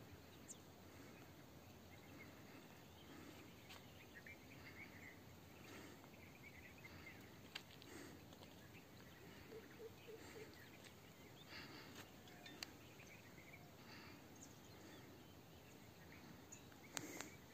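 Near silence: faint outdoor ambience with scattered distant bird chirps and a few soft clicks.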